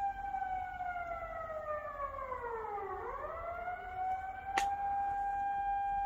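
Outdoor public warning siren sounding a steady high tone. Its pitch slides down for about three seconds, then rises back to the steady tone. A single sharp click is heard about four and a half seconds in.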